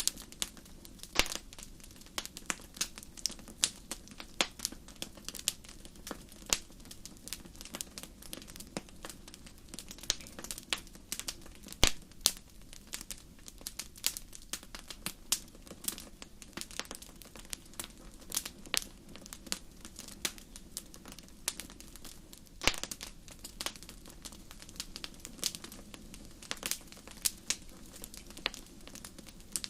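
Wood fire crackling: irregular sharp pops and snaps, some much louder than others, over a steady low rumble of burning.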